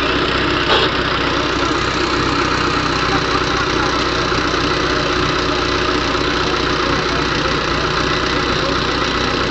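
Indo Farm 3055 DI tractor's diesel engine running steadily under load as it pulls a disc harrow through the soil. There is one short click about a second in.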